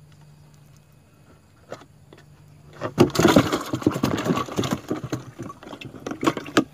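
Close, dense rustling and scraping handling noise, starting about three seconds in, with a few sharp clicks near the end.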